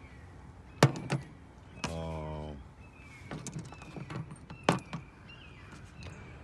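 Handling noises: a few sharp clicks and knocks, with a short hummed sound about two seconds in.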